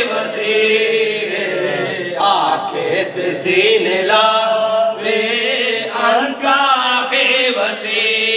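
Men's voices chanting a devotional poem together in long, melodic phrases.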